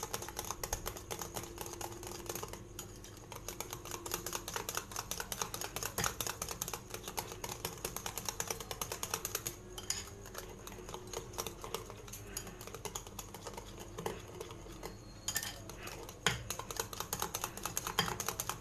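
Egg, sugar and butter batter being beaten by hand in a bowl: a utensil clicking rapidly and irregularly against the bowl, many strokes a second, with a brief pause about three seconds in. The beating is meant to dissolve all the sugar into a creamy mix.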